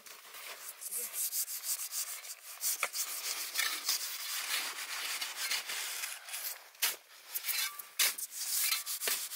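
Folding pruning saw cutting into a wall of packed snow with rapid back-and-forth strokes; the dense snow cuts almost like styrofoam.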